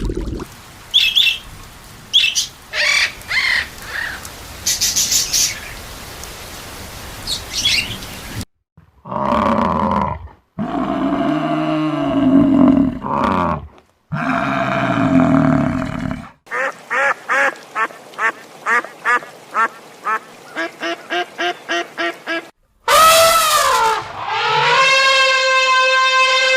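A string of different animal calls, one clip after another. Short high chirps come first, then several harsher pitched calls, then a fast run of short calls about three a second, and near the end one long wavering call.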